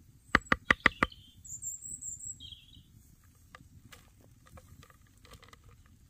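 A wooden spoon knocks five times in quick succession against the rim of a carved wooden bowl, shaking off a dollop of cream cheese. A bird chirps twice, then soft light patters follow as shredded cheese drops into the bowl.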